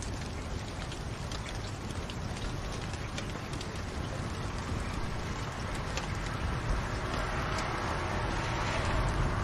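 Fireplace fire crackling: a steady hiss with scattered small pops, slowly growing louder toward the end.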